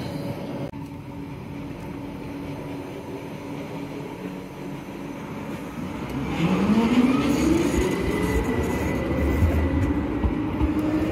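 SL95 articulated electric tram standing with a steady hum, then pulling away about six seconds in: its motors give a whine that rises in pitch as it accelerates and then levels off, joined near the end by a second, higher rising whine.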